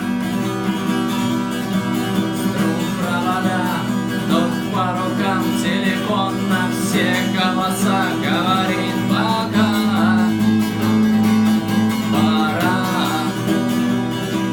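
Acoustic guitar strummed in a steady chord accompaniment, with a voice singing over it through the middle of the stretch.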